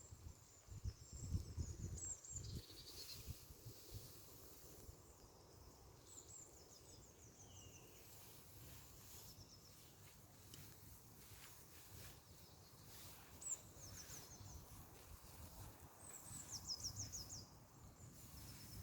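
Faint songbird song outdoors: short high trills of rapid chirps, repeated about four times. A low rumble sits under the first few seconds.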